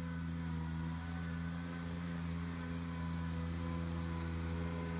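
1993 Grasshopper 721 zero-turn riding mower's engine running steadily at a constant speed while the mower is driven across the lawn.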